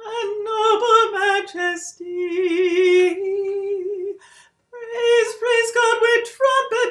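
A woman's solo unaccompanied voice chanting a psalm verse to a Gregorian-style psalm tone. A run of short sung syllables comes first, then one long held lower note with a slight waver about two seconds in, a brief break, and another run of syllables.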